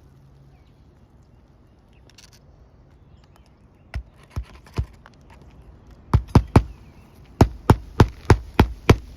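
Hammer driving roofing nails to fasten a replacement 3-tab asphalt shingle: after a few quiet seconds, sharp strikes begin, three at first and then a quicker run of about ten, roughly three a second.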